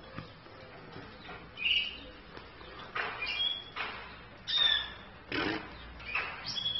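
Caged finches, a male European goldfinch and a female canary, giving short chirping calls every second or two, some notes falling in pitch. Between the calls come several brief rustling noises.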